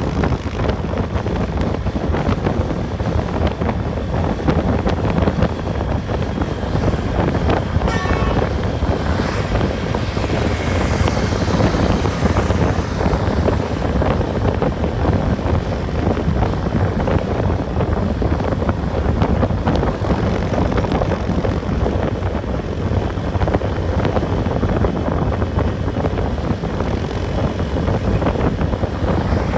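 Steady road and engine rumble of a moving vehicle, with wind buffeting the microphone.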